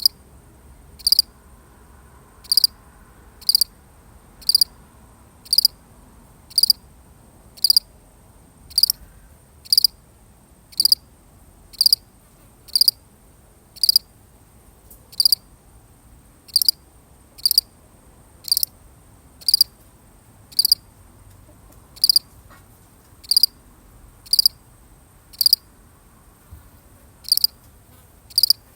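A single cricket chirping: short, high chirps repeating about once a second, slightly irregular in spacing.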